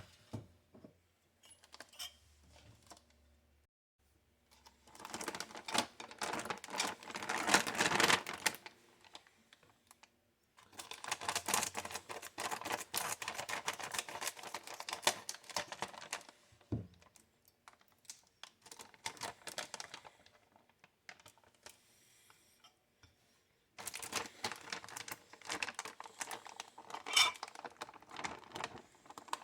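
Plastic packaging and tray of a frozen microwaveable pasta side being handled: rapid crackling and clicking in three bursts, the middle one longest.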